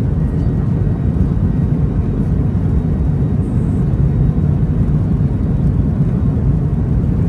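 Steady low rumble of a Boeing 737-800 heard from inside the passenger cabin: engines and airframe running with no change in pitch or level.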